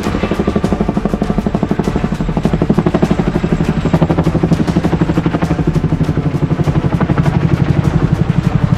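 Small electric RC helicopter, an Eachine E120, running its rotor. It makes a steady buzz with a rapid, even pulsing of about ten beats a second.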